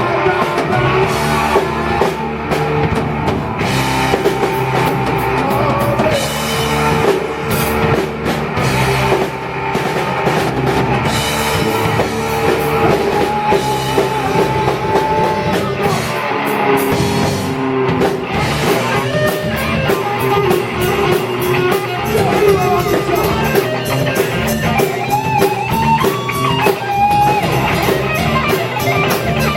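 A rock band playing live, with a drum kit and electric guitar. It is loud and continuous, and no words are sung.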